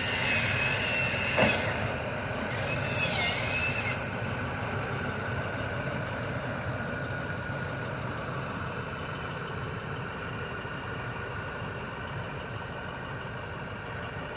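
Dump truck's diesel engine idling steadily, with two loud bursts of hissing air in the first four seconds, the first ending in a sharp click.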